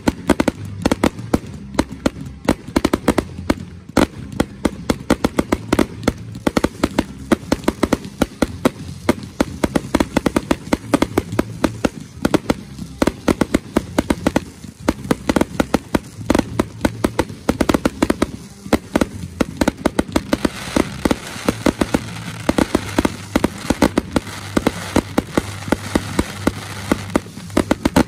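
Fireworks finale: a dense, continuous barrage of aerial shell bursts, with sharp bangs coming several times a second. It thickens into a denser crackle in the last third.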